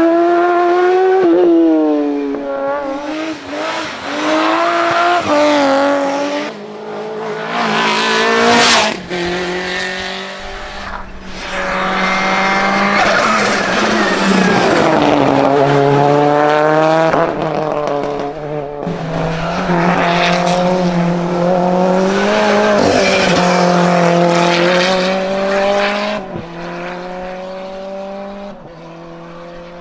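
Race car engine driven hard up a hillclimb course, its pitch climbing and dropping again and again with gear changes and lifts for the corners, with tyre squeal at times. It fades toward the end as the car moves away.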